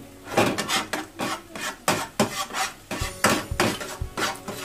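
Spatula scraping and knocking against a nonstick frying pan while scrambling eggs, in quick, irregular strokes, about four a second.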